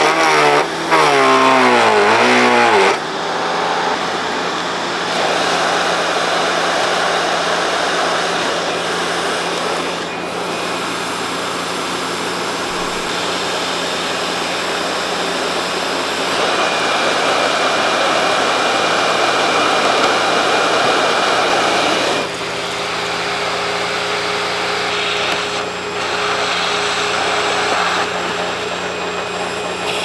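Sharp Twin Energy vacuum cleaner running with a loud, steady whir, its tone shifting several times. In the first three seconds a wavering pitch rises and falls over it.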